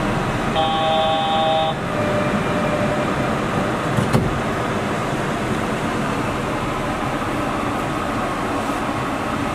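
Yurikamome rubber-tyred automated guideway train running steadily, heard from inside the cabin. A steady multi-pitched tone sounds for about a second, starting about half a second in, and a single sharp knock comes about four seconds in.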